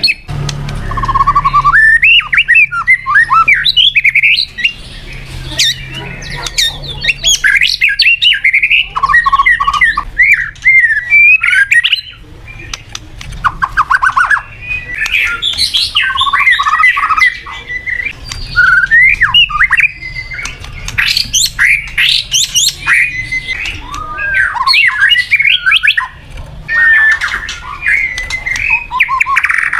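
White-rumped shama singing: fast, varied phrases of whistles, trills and sharp chattering notes, separated by short pauses. A faint low hum runs underneath.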